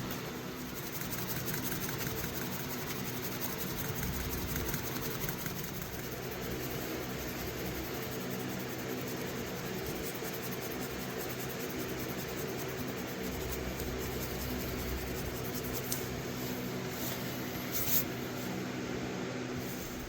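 A small electric motor running with a steady hum, with a single sharp click near the end.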